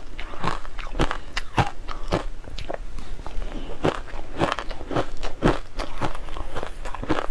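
Chewing and crunching a mouthful of frozen shaved ice, a quick string of crisp crunches two or three a second.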